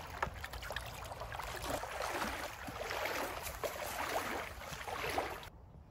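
Footsteps crunching and rustling through dry leaf litter and brush, a dense crackle with a step about once a second. It cuts off abruptly near the end.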